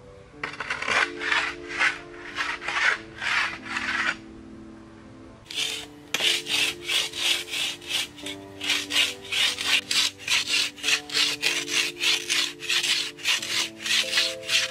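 A broad steel knife blade rubbed back and forth on a sand-dusted wooden stick to sharpen it, in rhythmic rasping strokes. There is a short run of strokes, a pause of about a second, then a longer, faster run of about three strokes a second.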